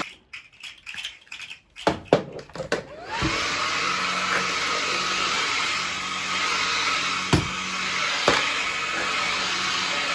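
An electric fan-motor appliance stops, leaving a few clicks and knocks. About three seconds in it is switched back on, whining up to speed, then runs with a steady whir and a faint high whine. Two sharp knocks come near the end.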